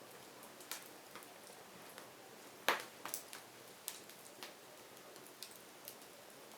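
Burning firewood crackling: scattered sharp pops and snaps over a faint steady hiss, the loudest pop about two and a half seconds in.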